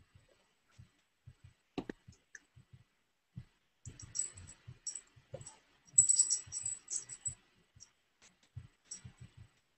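Computer keyboard and mouse being used: scattered soft taps and clicks, with a busier run of sharper clicking in the middle.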